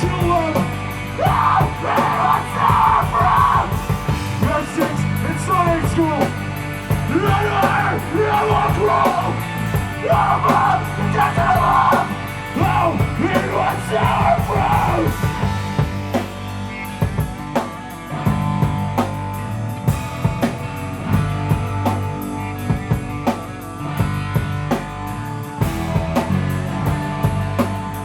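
Hardcore punk band playing live: distorted electric guitars, bass and drums, with sung vocals over roughly the first fifteen seconds, then the instruments alone with steady drum hits.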